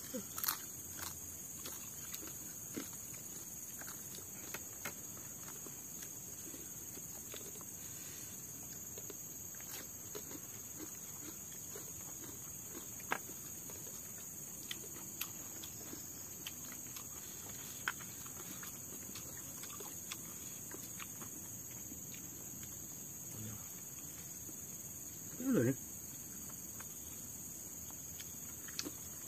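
Steady high-pitched chorus of insects, with scattered faint clicks and taps and one short vocal sound near the end.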